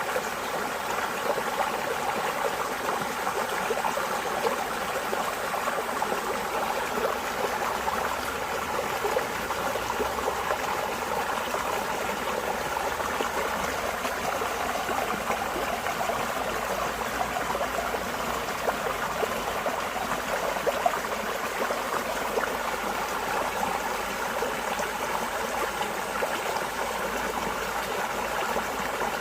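Water flowing steadily in a small stream, an even burbling and trickling with no change in level.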